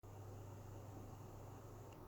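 Faint steady low hum over quiet room noise.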